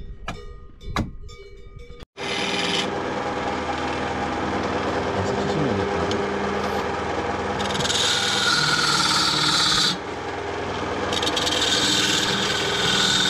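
A couple of knocks from a hatchet splitting firewood on a chopping block. Then, from about two seconds in, a wood lathe runs steadily while a hand-held turning tool cuts into the spinning wooden blank, louder and sharper from about eight to ten seconds in and again near the end.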